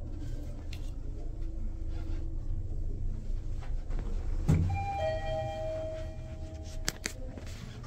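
1969 Mitsubishi RWBL traction elevator car running down with a steady low hum, a knock about halfway as it slows to land, then a two-tone arrival chime: a short higher note followed by a lower one held for about two seconds.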